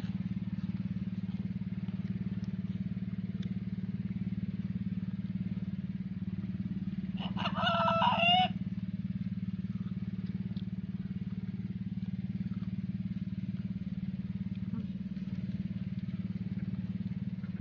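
A rooster crows once, about seven seconds in, for just over a second, over a steady low engine hum.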